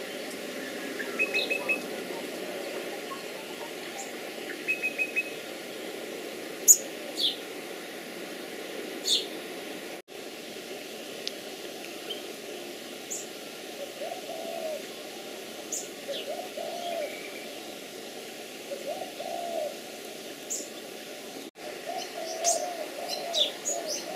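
Outdoor garden birdsong: scattered short high chirps and quick runs of notes, with a dove cooing over and over through the second half.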